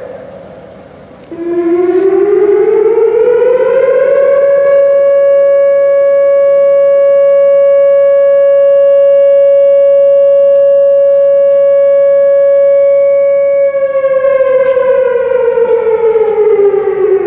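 Loudspeaker alarm siren: the tail of a wail fades out, then a new wail starts about a second in, rises in pitch over about three seconds, holds one steady tone for about ten seconds, and falls away again near the end.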